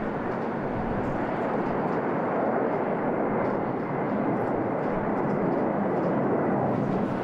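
Jet aircraft engines running with a steady roar that swells slightly and then falls away at the very end.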